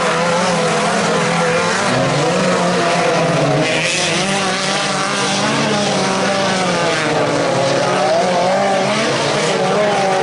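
Engines of several 140 PS stock cars racing on a dirt track. They run hard at full revs, and their pitch keeps rising and falling as the drivers lift, slide and accelerate through the turns.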